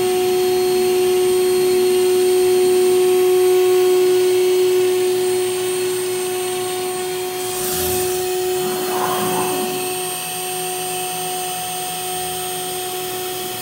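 Thermwood CS40 CNC router running, its spindle giving a steady whine over a rushing of air. About eight seconds in there is a short burst of noise and some sliding tones as the head moves. After that the whine is weaker and a low hum is left.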